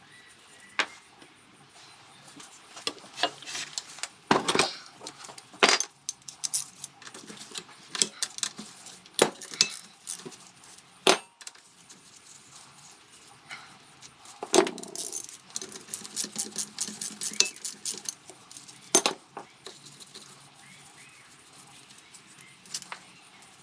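Metal hand tools and engine parts clinking and clattering in scattered sharp knocks and jingles, with clusters of rapid clinks and quieter gaps between them, as a scooter engine is taken apart.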